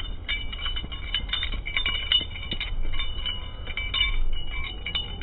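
A small bell rings in rapid, uneven repeated strikes over a low steady rumble: the notification-bell sound effect of a subscribe animation.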